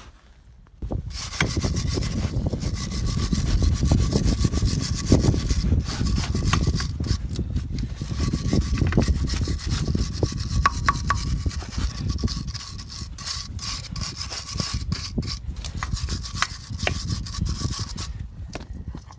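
Hand wire brush scrubbing rust off the hub face and centre bore of an alloy wheel in rapid back-and-forth strokes. It starts about a second in and stops shortly before the end.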